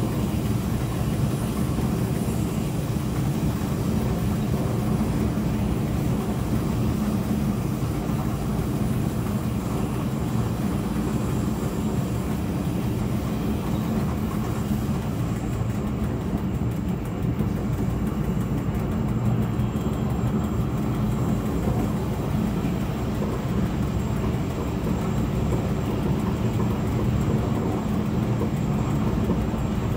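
Steady running noise of an SBB Re 420 electric locomotive, heard from inside its driver's cab while the train is under way: a constant low rumble and hum with no distinct wheel clicks.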